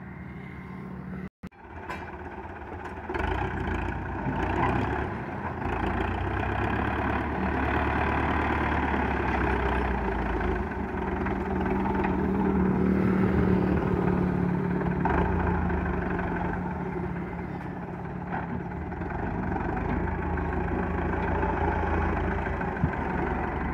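Diesel engine of a front-loader tractor running steadily at low revs, getting louder a few seconds in.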